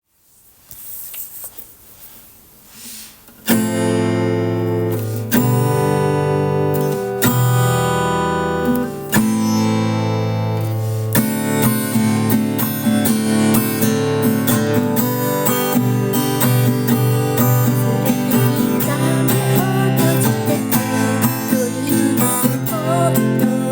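Acoustic guitar strumming chords, played slowly at about 125 beats per minute. Faint rustling for the first few seconds, then from about three and a half seconds in a few long chords ring out, and from about eleven seconds a steady, busier strumming rhythm sets in.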